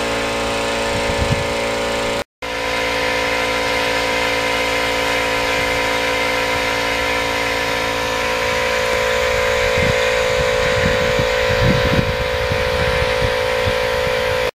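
A motor or engine running steadily, a constant drone with several fixed tones, with some low rumbling about ten to twelve seconds in.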